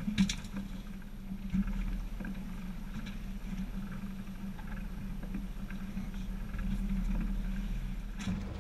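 Twin outboard motors running steadily at trolling speed, a low even hum. A sharp knock sounds just after the start and a smaller one about a second and a half in.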